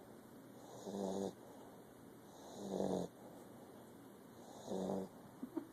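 Pit bull snoring while asleep: three snores about two seconds apart, each a short pitched rasp.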